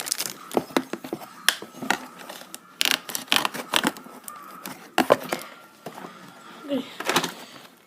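Irregular clicks, taps and rustles of objects being handled close to the microphone, with a brief vocal sound near the end.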